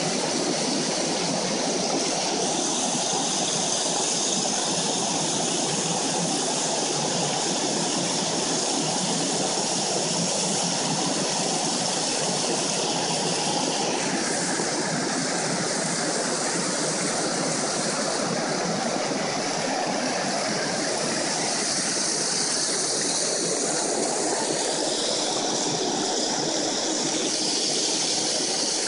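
Creek water rushing over a smooth rock chute into a pool: a steady rushing noise that shifts slightly in tone about halfway through.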